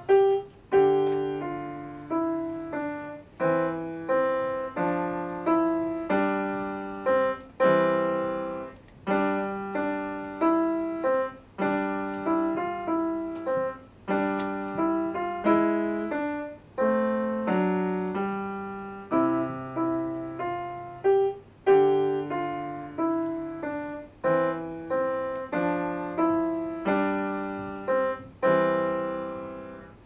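Grand piano played solo: chords and melody notes struck about once a second and left to ring, with the last chord dying away near the end.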